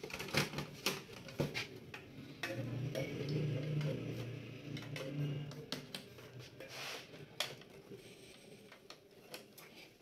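Irregular clicks and knocks of a desktop PC's metal power supply unit and its cable connectors being handled and unplugged while the unit is lifted out of the case.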